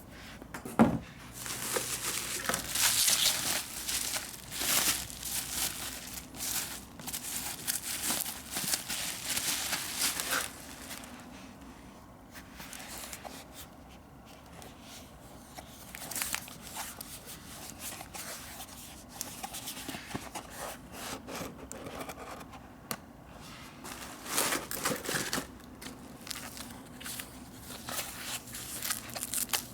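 Packaging being unwrapped by hand: plastic or paper wrapping crinkling and tearing in irregular bursts, with a sharp knock about a second in and a quieter stretch in the middle before another burst of rustling.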